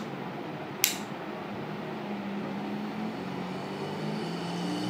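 Seasir Black Max baitcasting reel being worked by hand: two sharp clicks about a second apart, then a faint, steady whirr as the handle is turned.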